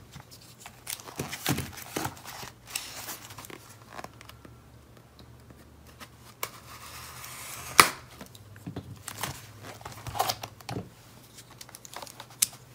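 A cardboard box being opened with a folding knife: the blade slits the packing tape amid crinkling and rustling of cardboard and packaging, with scattered sharp clicks. A longer stretch of slitting ends in a loud sharp crack about eight seconds in.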